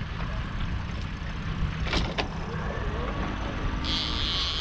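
Boat motor running steadily under a low rumble. There is a sharp click about two seconds in, and a high hissing buzz starts near the end.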